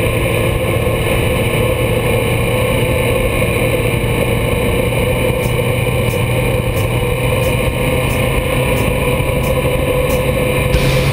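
Motorcycle engine running at a steady cruise, mixed with wind and road noise, heard from a camera mounted on the bike's handlebars.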